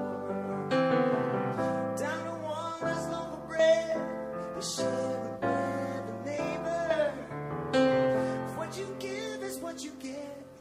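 Live song performance: a singing voice carrying a held, wavering melody over instrumental accompaniment.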